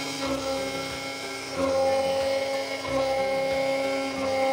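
Electric mixer grinder motor running at full speed with a steady high whine, grinding onions to a paste in its steel jar.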